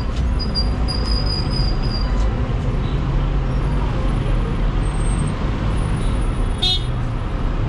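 Street traffic: a steady low rumble of car engines and road noise, with one brief sharp sound near the end.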